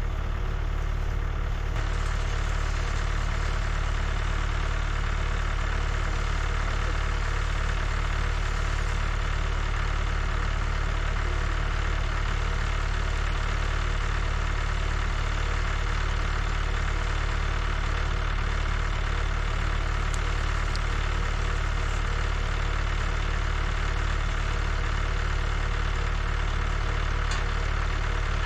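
Old tractor's engine running steadily, with no change in speed throughout.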